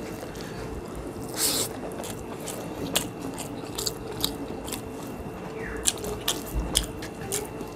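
People eating rice and curry by hand: chewing with many short, sharp mouth clicks and fingers squishing and scraping rice on the plates, with a brief louder rustle about a second and a half in. A faint steady hum runs underneath.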